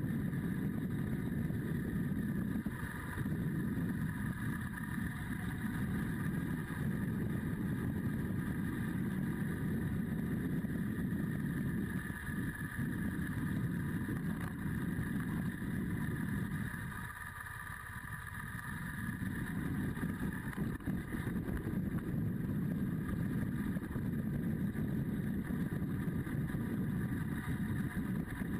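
Motorcycle engine running under way, with road and wind noise. It drops away for a moment a little past halfway, as the throttle eases, then picks back up.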